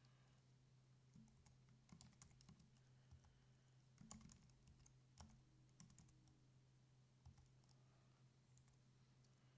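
Near silence: a low steady hum with faint, irregular clicks scattered through the middle of the stretch.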